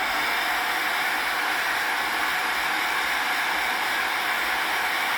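Handheld hair dryer running steadily: an even rush of blown air with a faint, steady motor whine.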